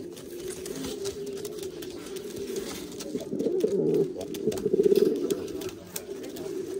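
Valencian pouter pigeons cooing in courtship, a young cock displaying to a hen, the low cooing going on without a break. It swells louder about three and a half seconds in and again around five seconds.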